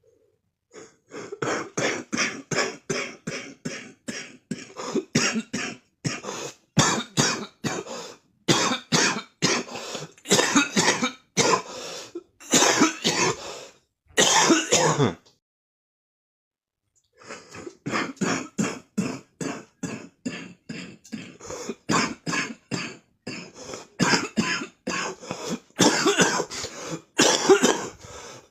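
A person's smoker's morning cough: a long fit of short coughs in quick runs of about three a second, with a pause of about two seconds halfway through before the coughing starts again.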